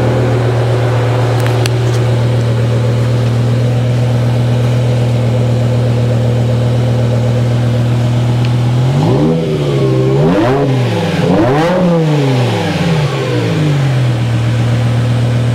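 BMW E60 M5's S85 V10 idling steadily at the exhaust, then blipped three times from about nine seconds in, the pitch rising and falling back with each rev before it settles to idle. The revs stay low because the car won't let the engine rev out with the bonnet open.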